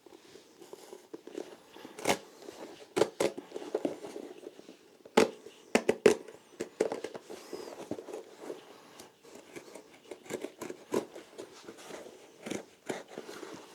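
Hand tools cutting and prying at a shoe's sole to part it from the midsole: irregular sharp clicks and knocks over scraping and crackling, loudest around 5 to 6 seconds in.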